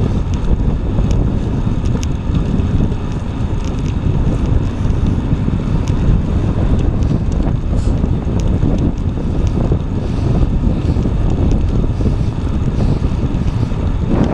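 Wind buffeting the camera's microphone on a moving bicycle: a steady low rumble with a few faint ticks.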